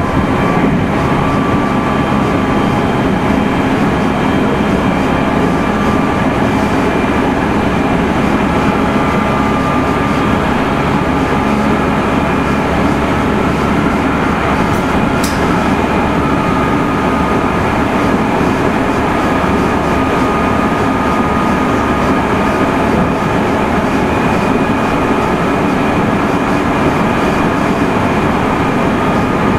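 Meitetsu 3100 series electric train running at steady speed, heard from inside the car: a steady rumble of wheels on rail with a few faint steady whines over it. There is one short, sharp click about halfway through.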